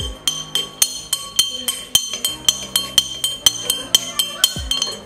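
Long-handled metal spoon stirring in a tall drinking glass, clinking against the glass about four times a second, each clink ringing brightly.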